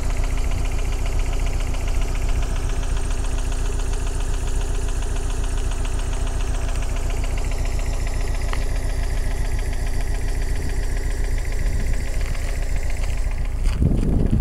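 Daewoo Lanos petrol engine idling steadily: an even low hum with a fast regular pulse. A brief louder low bump comes near the end.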